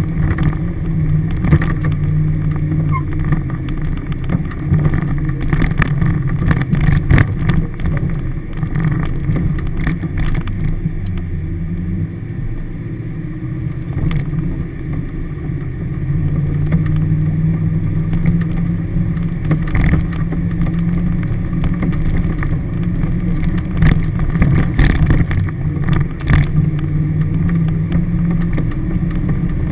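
Toyota Hilux 4WD's engine running steadily at low speed, heard from inside the cabin, with scattered knocks and rattles as the vehicle lurches over a rough dirt track. The engine note eases briefly about halfway through.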